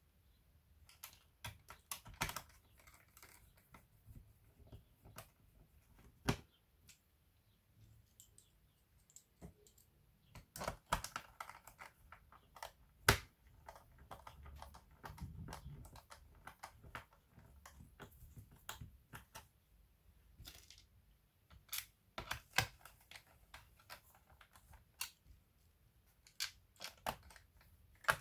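Irregular small clicks and light taps, scattered about once a second with a few short clusters, from hands working on a laptop's plastic and metal parts.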